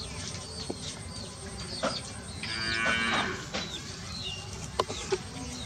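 A drawn-out animal call lasting about a second, midway through, with short high chirps scattered around it.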